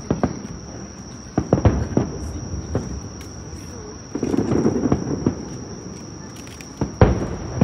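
Fireworks display: several separate bangs, the loudest about seven seconds in, over a steady high-pitched whine.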